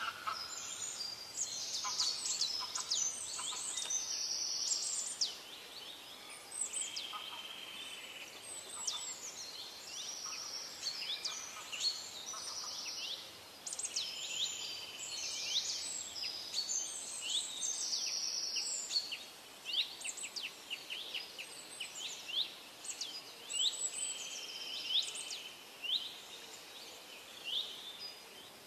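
Several birds chirping and calling, many short high chirps mixed with longer trilled notes, over faint outdoor background noise.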